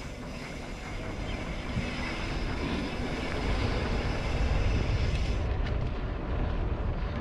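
Riding noise from a mountain bike on a hard-packed sand trail: wind buffeting the microphone over a steady low rumble of tyres and frame. A higher hiss drops away about five and a half seconds in.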